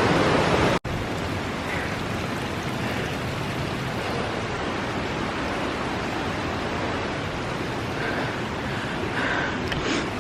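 Steady rush of creek water. It is louder for the first second, then after a sudden cut continues more quietly and evenly.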